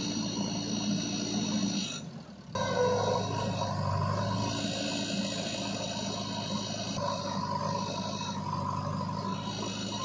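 JCB backhoe loader's diesel engine running steadily under load as the machine digs and lifts a bucket of soil. The sound cuts out briefly about two seconds in.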